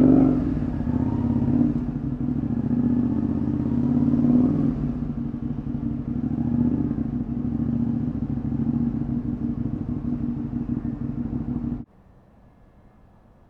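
Honda VTR250's V-twin running through a Moriwaki Engineering full exhaust system, revving up a few times early on and then holding a steady note. The sound stops abruptly about twelve seconds in.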